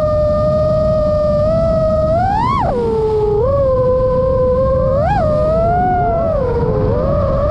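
FPV freestyle quadcopter's brushless motors and propellers whining steadily in flight. The pitch jumps sharply and falls back twice as the throttle is punched, over a low rumble.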